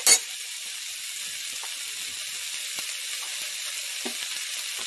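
Stir-fried vegetables (onion, bell pepper, broccoli) sizzling steadily in hot oil in a nonstick wok. A short loud clatter comes at the very start.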